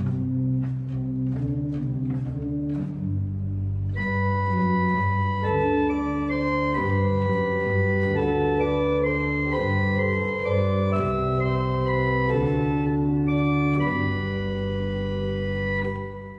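A two-manual church organ playing slow held chords over low bass notes. About four seconds in, a brighter, higher melody enters on top, and near the end the chords die away.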